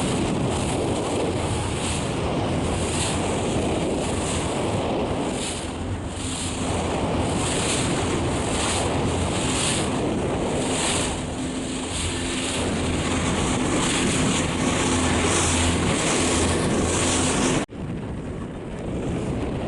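Wind buffeting the microphone and water rushing and splashing past the hull of a moving motorboat, with a steady low engine drone underneath. The noise swells and ebbs repeatedly and cuts off abruptly near the end, coming back a little quieter.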